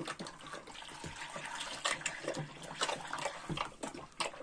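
Two piglets slurping and smacking milk from a shallow feeding tray: irregular wet lapping sounds.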